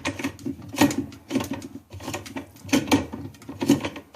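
Top-load washer's plastic agitator rattling and knocking as it is unscrewed and worked loose by hand, in a series of irregular clatters about one or two a second.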